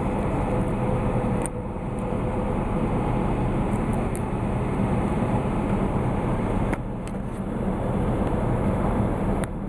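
A steady low mechanical hum, like a vehicle running, with a faint steady tone in the first two seconds and a few faint clicks.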